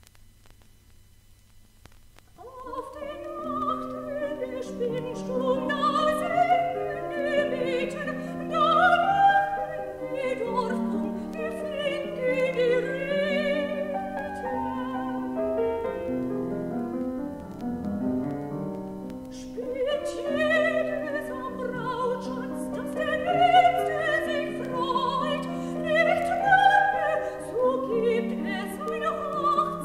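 Soprano singing a classical art song with piano accompaniment, played from a vinyl record. The voice and piano come in about two and a half seconds in, after a stretch of quiet with a faint low hum, and the singing pauses briefly about two-thirds of the way through.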